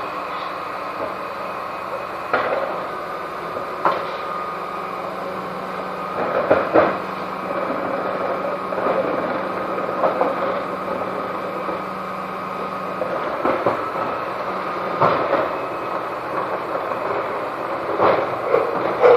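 Mercedes refuse collection truck with a Dennis Eagle Olympus body running at a steady hum while blue wheelie bins are collected, with sharp clunks from the bins and bin lift every few seconds. A steady tone in the hum drops away about two-thirds of the way through.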